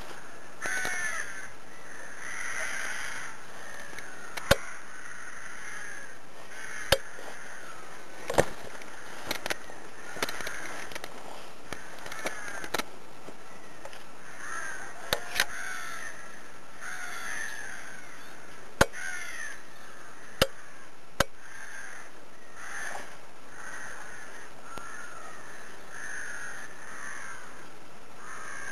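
Crows cawing over and over, calls overlapping almost without a break. About ten sharp clicks or snaps, louder than the calls, are scattered through.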